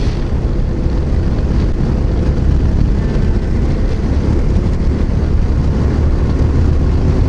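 Yamaha XT660Z Ténéré's 660 cc single-cylinder engine running steadily at road speed, mixed with a steady rush of wind noise.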